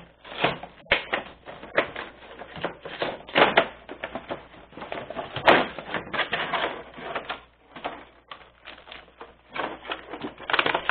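Toy packaging being pulled apart: cardboard tearing and a clear plastic blister tray crackling and crinkling in the hands, in irregular bursts.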